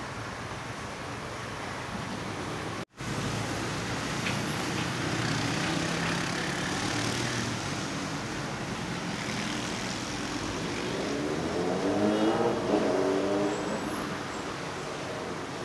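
Road traffic noise: the steady rush of cars passing on a busy city street. About twelve seconds in, a louder vehicle engine passes, its pitch rising and falling.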